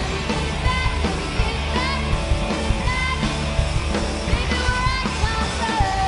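Live rock band playing: electric guitars and a drum kit with regular drum hits, under a lead vocalist singing a melody that slides between notes and ends on one long held note.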